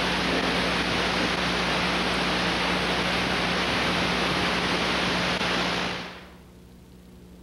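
A steady, loud rushing hiss with a low hum under it. The hiss fades out about six seconds in, leaving the hum.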